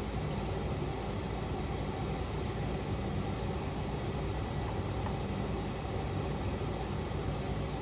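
Steady low machine hum with an even hiss. Two faint clicks come around the middle.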